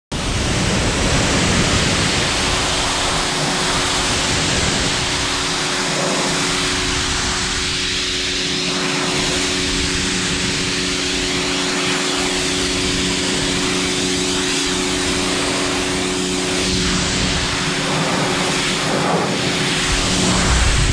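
Hncelrat electric pressure washer running, with a steady motor hum under the loud, even hiss of its high-pressure water jet spraying the grime off a propane tank.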